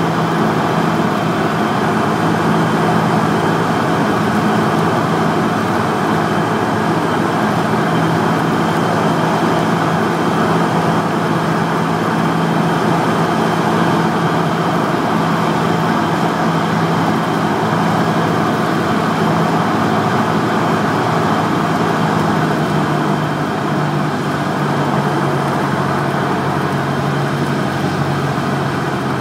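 Cessna 172's four-cylinder piston engine and propeller droning steadily, heard from inside the cabin on the landing approach. The engine note drops a little about three-quarters of the way through.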